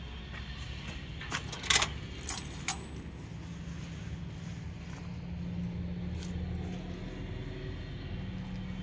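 A quick run of sharp metallic clinks with a faint high ring, about one and a half to three seconds in, over a steady low hum.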